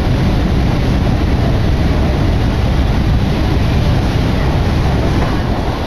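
Steady, loud rumble of a moving train heard from inside the passenger car, with no sudden knocks or announcements.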